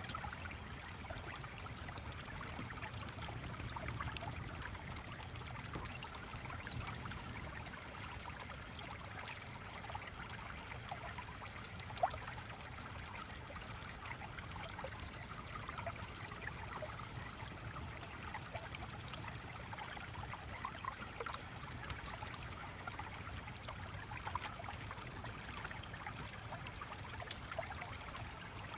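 Small stream running steadily, water trickling and burbling over a low rumble, with one sharp click about twelve seconds in.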